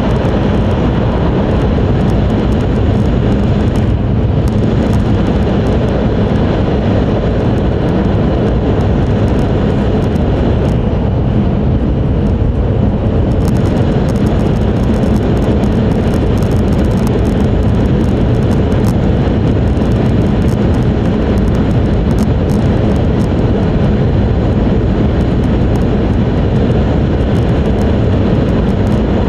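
Cabin noise inside an E5 series Shinkansen car running at speed: a steady, loud rumble of wheels, track and passing air, heaviest in the low end. The higher hiss thins briefly about four seconds in and again for a couple of seconds near the middle.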